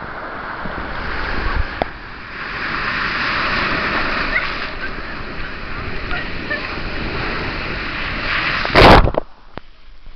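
Breaking sea surf and foaming white water rushing around the camera, a dense hiss that swells and eases with the waves. About nine seconds in comes one loud, sudden splash, after which the sound drops much quieter.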